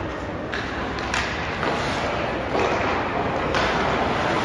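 Ice hockey play in an echoing rink: several sharp knocks of sticks and puck, with skates scraping the ice and voices in the background.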